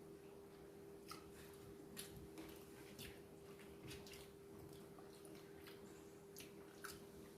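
Faint eating sounds: soft chewing with a few scattered clicks, over a steady low hum.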